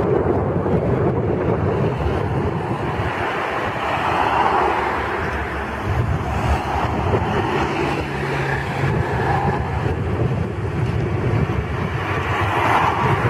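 Twin-engine jet airliner at takeoff power: a steady roar with a low rumble, and a faint fan whine coming in near the end.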